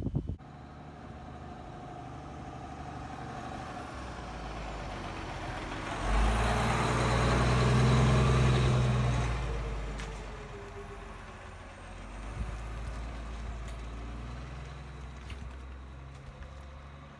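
Fire engine driving past close by: its diesel engine grows louder as it approaches, is loudest about six to ten seconds in, then fades away as it leaves.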